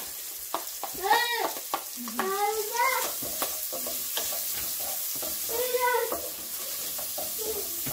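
Diced calabresa sausage and chopped garlic frying in a pan, a steady sizzle with the stir and scrape of a wooden spoon. Three short rising-and-falling cries stand out over it, at about one second, two and a half seconds and six seconds in.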